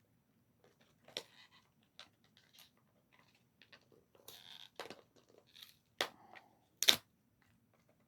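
Product packaging being torn and crinkled open by hand: irregular crackling and rustling, with a few louder sharp snaps in the second half.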